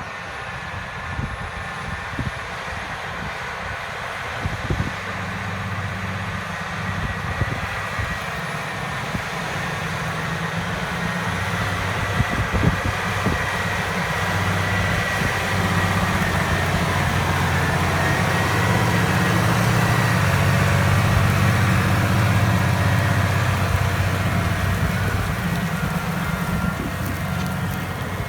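Massey Ferguson 7618 Dyna-6 tractor's six-cylinder diesel engine working steadily under load while pulling a six-furrow plough. It grows gradually louder as it comes closer, is loudest about twenty seconds in, then fades a little.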